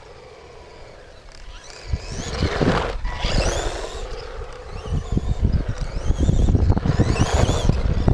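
1/16-scale electric remote-control truck running, its motor whining and rising and falling in pitch twice as it speeds up and slows. Under it is a low rumble with tyre and ground crackle, louder over the second half.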